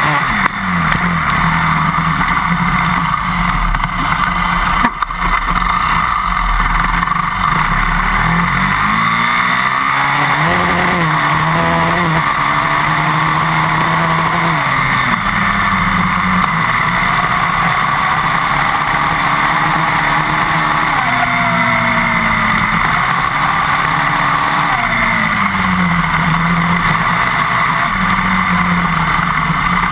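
Yamaha WR400F dirt bike's single-cylinder four-stroke engine running under way, its pitch climbing and dropping several times with throttle and gear changes. A steady rush of wind and tyre noise runs underneath, heard close to the rear wheel.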